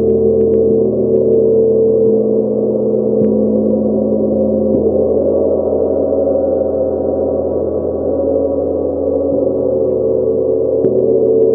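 A 70 cm Nepalese gong played with a felt mallet, ringing in a dense, sustained wash of overlapping tones. Soft mallet strokes every few seconds keep it sounding at an even level.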